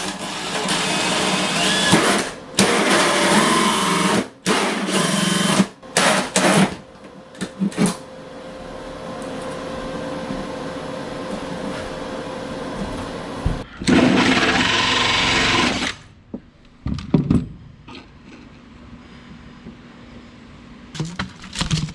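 Power drill boring into the wall near the ceiling, run in several loud stop-start bursts, then a steadier, quieter stretch of running and one more loud burst about two-thirds of the way through.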